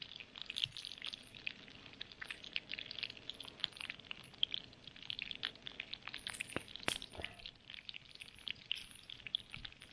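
Potatoes frying in a pan over a campfire, a dense crackling sizzle of fat spitting, with one sharper pop about seven seconds in. Beneath it a gas camp stove runs with a faint steady roar.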